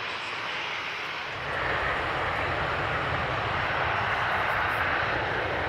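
Jet airliner engines running as a steady noise with no distinct tones. It grows louder and deeper about a second and a half in.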